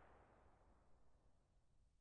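Near silence: a gap between gun sound samples.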